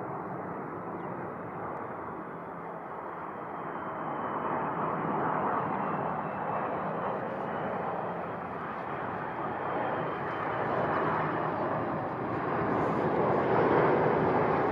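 Airbus A330-202's General Electric CF6-80E1A4 turbofan engines on final approach, a steady jet rumble that grows louder as the airliner nears, with a faint high whine sinking slightly in pitch over the first few seconds.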